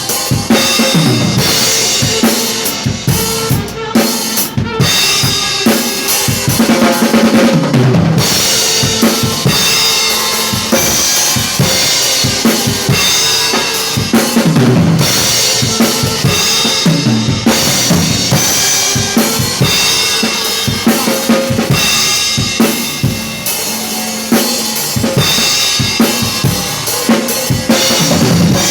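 Drum kit played in a steady groove, with bass drum, snare and cymbals, along with a recorded worship song.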